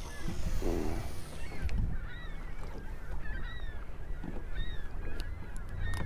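A flock of geese calling, with many short, overlapping honks throughout, over a low rumble of wind and water.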